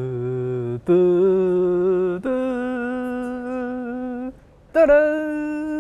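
A man's voice singing four long held notes, each higher than the last, with a short break before the fourth.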